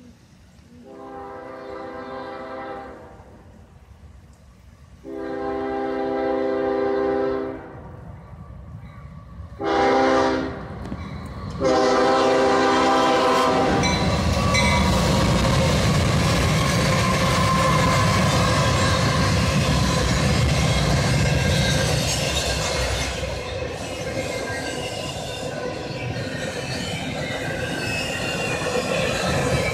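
Air horn of a CSX freight train's lead locomotive, a GE ES40DC, sounding the grade-crossing signal: two long blasts, one short and one long. Then the three GE diesel locomotives pass close by with a heavy engine rumble, followed by the steady rolling noise of steel wheels under intermodal well cars.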